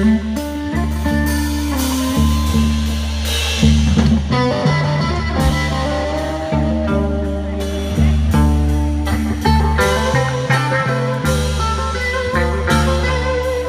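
Live rock band playing an instrumental passage: guitars over a steady bass line with drums.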